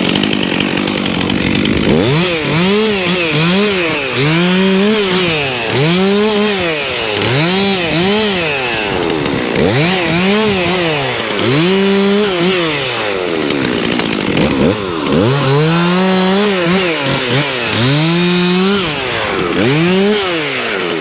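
Chainsaw running, its engine revved up and let back down again and again, about once every second or two, as in cutting.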